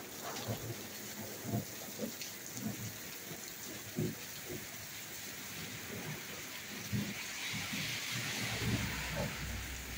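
Heavy rain pouring steadily, with close drops and drips knocking irregularly. Near the end the rain hiss swells and a low rumble comes in.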